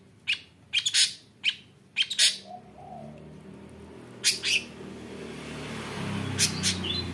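Female long-tailed shrike giving short, harsh calls in clusters of one to three, about a dozen in all, thickest in the first two seconds, then a pair in the middle and a pair near the end. A low rumble builds underneath from about a third of the way in.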